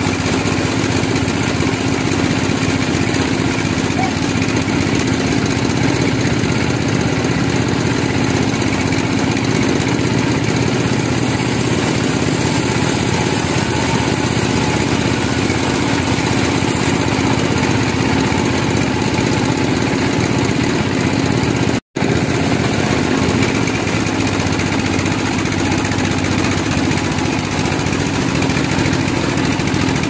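Large band sawmill running and cutting a log lengthwise into a slab as the carriage carries it past the blade: a loud, steady, dense machine noise, broken only by a split-second dropout about two-thirds of the way through.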